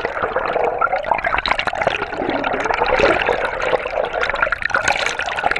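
Loud, continuous rush of splashing water close to the microphone, with many small crackles through it.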